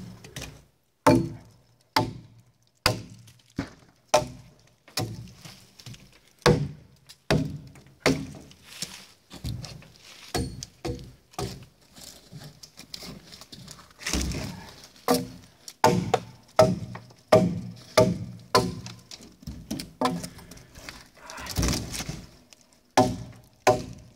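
Hatchet chopping into bark-covered logs, a long run of sharp strokes a little more than one a second, each with a brief ring.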